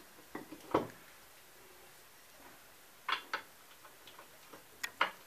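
Socket ratchet clicking on a Mercruiser Bravo One outdrive's bell housing nuts: three pairs of sharp clicks, a second or two apart.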